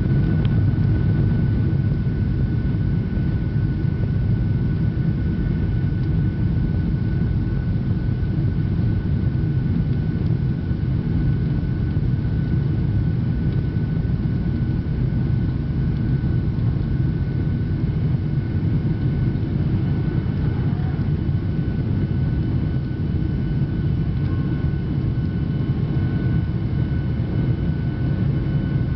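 Airliner jet engines at takeoff thrust heard from inside the cabin during the takeoff roll: a steady loud rumble with a thin, steady whine over it, joined by a few higher whines about two-thirds of the way through.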